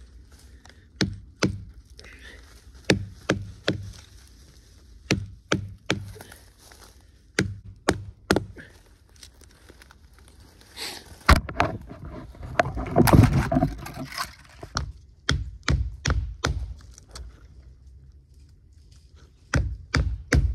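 Knife blade chopping into the bark of a small tree: a string of sharp knocks, often two in quick succession. There is a longer spell of rough scraping and crackling a little past the middle.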